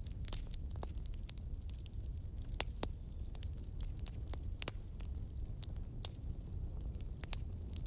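A steel slotted spoon clicking and clinking against metal pots as boiled chicken pieces are lifted out of a pressure cooker and moved into a pan of gravy, over a steady low rumble. The sharpest clinks come about two and a half and four and a half seconds in.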